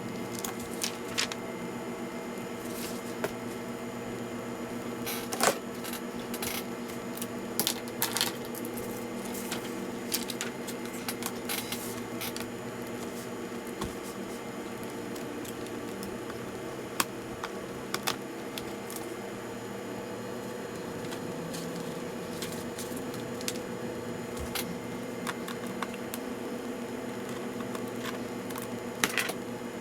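Scattered small clicks and taps, hard plastic and metal handling of a laptop case and its small parts, over a steady low electrical hum.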